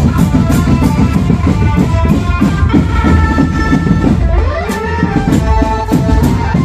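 Marching drumband playing a song: drums keep a steady beat under held melody notes, with a sliding note a little past the middle.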